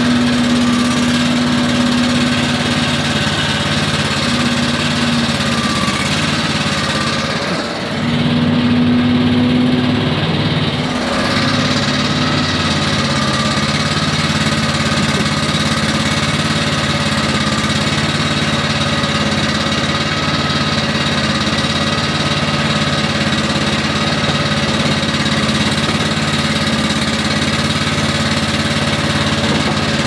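Stand-on leaf blower running steadily: an engine hum under the rush of air from the blower fan. The higher rush briefly drops away about eight seconds in and comes back around eleven seconds.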